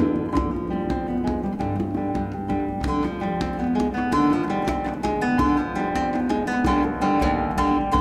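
Background music: acoustic guitar playing a continuous run of quick plucked notes.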